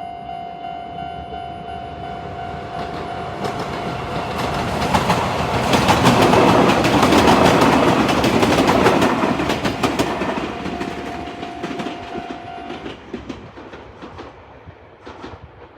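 Japanese level-crossing warning bell of the old standard type, ringing rapidly as a Chichibu Railway train passes. The train's wheels clatter over the rail joints, loudest midway, and drown out the bell. The bell is heard again briefly and stops a few seconds before the end while the train noise fades.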